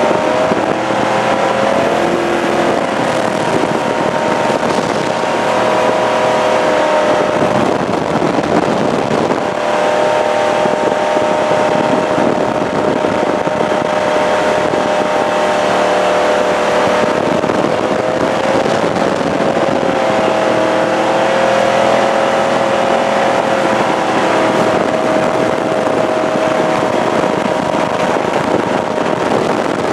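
Jet boat's engine running steadily at speed under way, its drone shifting slightly in pitch now and then, over a constant rushing noise.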